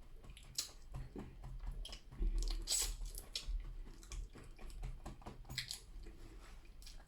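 Chewing and biting close to the microphone, with irregular small crunches and wet mouth sounds, louder for a moment about two seconds in.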